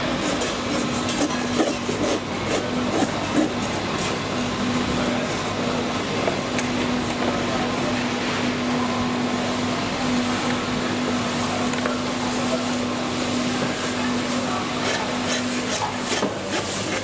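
Background of a butcher's market stall while meat is cut: a steady low hum that breaks off now and then and stops near the end, over a constant haze of noise, with scattered short knocks and clicks from the cutting work.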